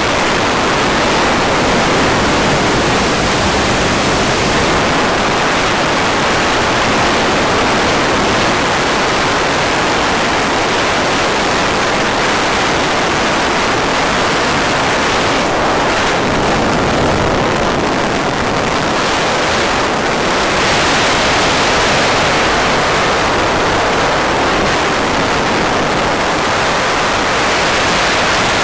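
Loud, steady rushing hiss on the audio of an RC glider's analog FPV video link, with no motor sound because the motor is off during the glide.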